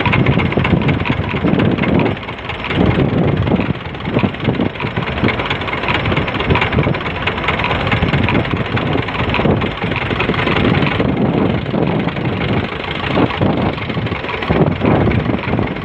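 Boat engine running steadily, mixed with wind buffeting the microphone.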